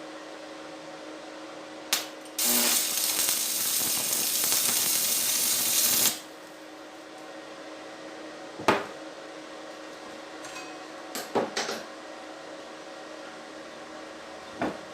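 A loud, even hissing noise lasting about four seconds, starting just after a click. It is followed by a few separate knocks and clicks, over a steady background hum.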